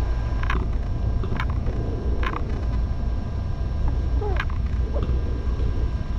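Very young kittens giving short high squeaks, four of them roughly a second apart in the first half and a couple of short, falling mews later, over a loud steady low rumble.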